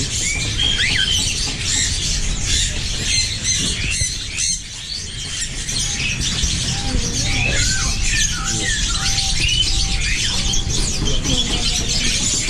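Caged budgerigars chattering, with many quick, high chirps and squawks overlapping one another.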